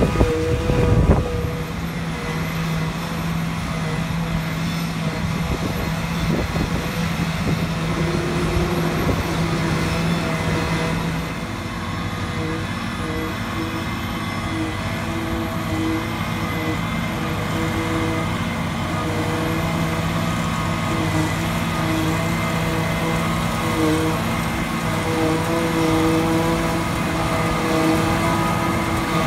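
Massey Ferguson 7720S tractor driving a JF FCT1050 trailed forage harvester as it chops and blows grass into a trailer, engine and machine running steadily together with a tractor and trailer alongside. A brief thump about a second in.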